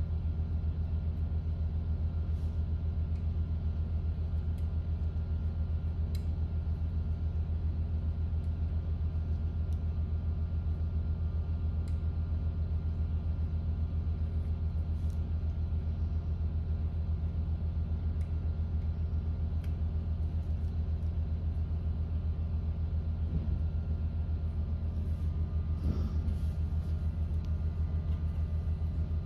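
Steady low rumble of construction machinery running outside, muffled through a closed door. A few faint clicks of small parts being handled sit over it, with a slightly louder handling noise near the end.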